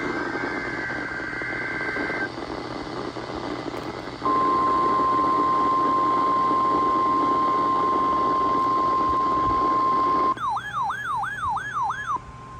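NOAA Weather Radio weekly test alert: the end of a screechy SAME digital data burst, a short stretch of radio hiss, then the loud steady 1050 Hz warning alarm tone for about six seconds. Near the end the steady tone gives way to a fast rising-and-falling siren-like tone, about three sweeps a second, before the steady tone returns briefly.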